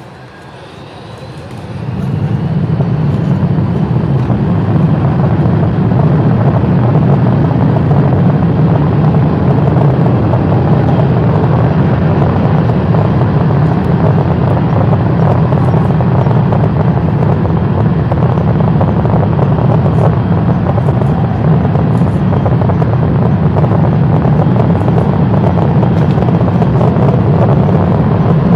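Kawasaki C-1 jet transport's two engines spooling up to takeoff power. The sound swells over the first two seconds, then holds as loud, steady jet noise with a heavy low rumble.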